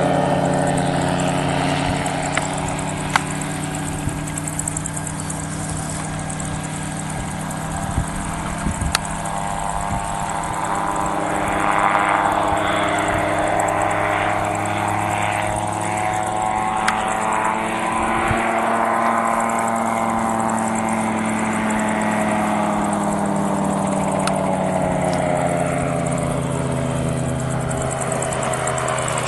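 ELA-07 autogyro's engine and pusher propeller droning as it flies past overhead, the pitch rising as it comes closer and loudest about halfway through, then falling away as it moves off.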